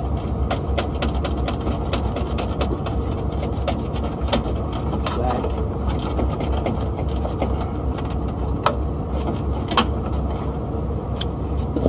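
A steady low mechanical rumble of running equipment, with scattered small clicks and taps from handling contactor wiring and tools. A few sharper clicks come near the end.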